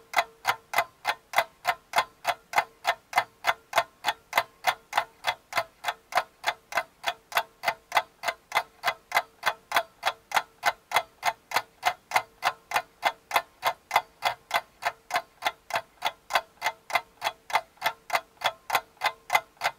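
Steady, even ticking, about three ticks a second, over a faint steady hum.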